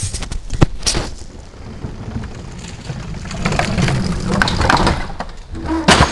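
Mountain bike riding over a wooden plank boardwalk and teeter-totter: a run of knocks and clatters from the tyres on the planks, rustling in dry leaves in the middle, and a loud sharp knock near the end as the teeter board tips and drops.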